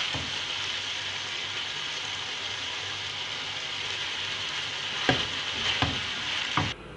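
Boneless chicken pieces sizzling steadily as they fry in oil in a non-stick pan. Three short knocks of the spatula on the pan come near the end, and the sizzling cuts off abruptly just before the end.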